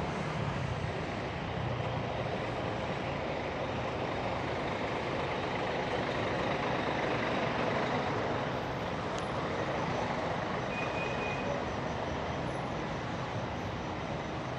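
Steady road traffic noise, with engines and tyres passing on a city street. A short high beep sounds about eleven seconds in.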